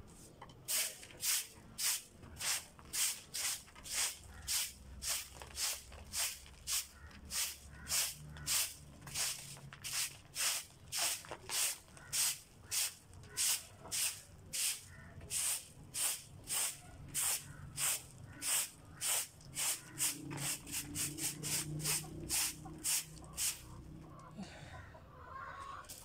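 Stiff stick broom sweeping a rooftop floor in steady strokes, about two a second, quickening slightly near the end before stopping.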